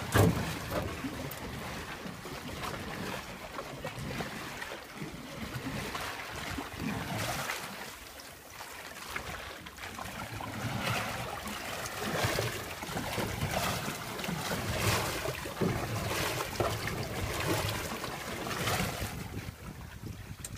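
Water splashing and sloshing around a Cessna 185 floatplane's floats as it is paddled, with soft strokes every second or two.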